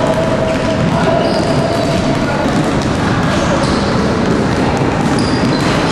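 Basketballs bouncing and thudding on a wooden sports-hall floor, many impacts overlapping into a steady din against a background of children's voices in a large, echoing gym.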